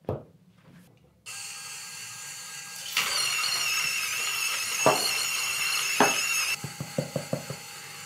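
Varia VS3 Generation 2 electric coffee grinder's motor starts about a second in and runs with a steady whine while grinding. It grows louder for about three and a half seconds, with a couple of sharp clicks, then drops back and runs on more quietly with a quick run of clicks near the end.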